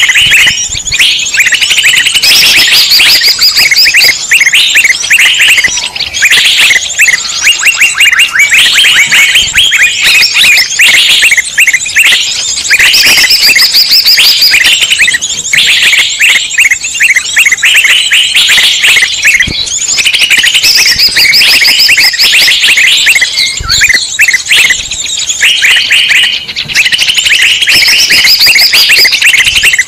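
Loud, continuous chattering of many small songbirds calling over one another in rapid chirps and trills: a bird-lure recording of noisy, agitated birds used to draw wild birds in.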